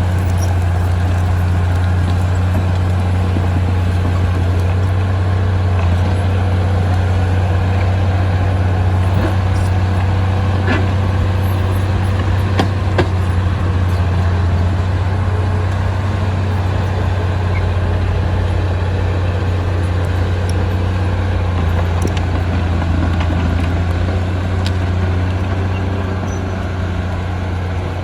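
Heavy diesel machinery running steadily with a low, even drone, and scattered light clicks and knocks over it.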